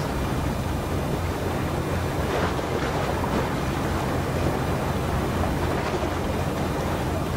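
Steady low rumble of wind buffeting the microphone, over a haze of harbour water.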